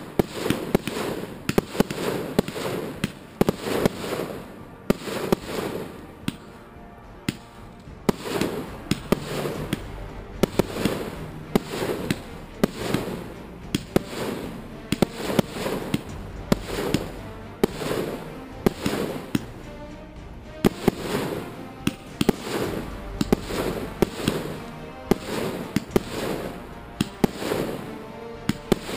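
Fireworks display: aerial shells launching and bursting overhead one after another, sharp bangs several times a second over a constant rumble.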